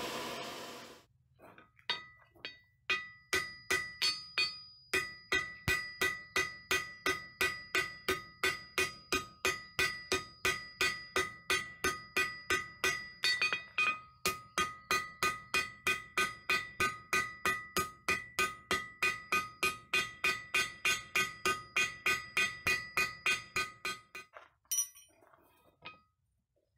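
Hand hammer forging the end of a steel bar into an arrowhead on a steel anvil block: a steady run of blows about three a second, each one clinking with a clear metallic ring. The blows stop shortly before the end, followed by a couple of light clinks.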